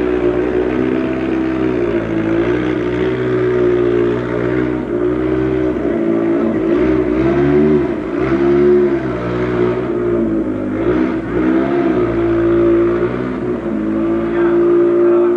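Hill-climb race car engine revving hard, its pitch climbing and dropping again and again as it changes gear, holding high near the end.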